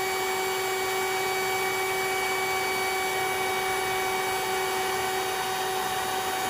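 Electric pump sucking the air out of an inflatable air mattress, its motor buzzing steadily with a fixed whine.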